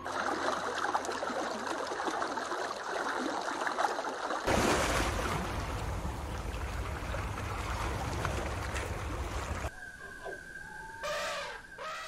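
Water lapping and splashing at the shore, louder and fuller from about four and a half seconds in. It drops away near ten seconds to a quieter passage with a steady high tone and a few short calls that slide in pitch.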